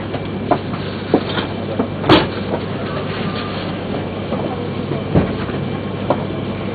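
Inside a Yamagata Shinkansen car standing at the platform: a steady low hum from the train's onboard equipment, with scattered knocks and clicks in the car, the loudest about two seconds in.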